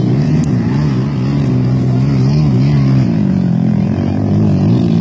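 Quad bike engine running hard, its pitch rising and falling as the throttle is worked on and off.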